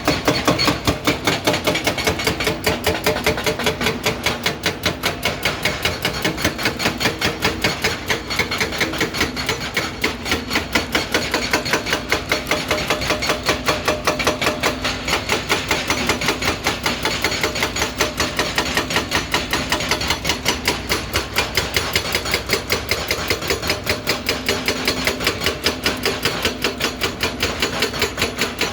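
Excavator-mounted hydraulic breaker hammering, a fast, even run of sharp blows, over the steady sound of the excavator's engine.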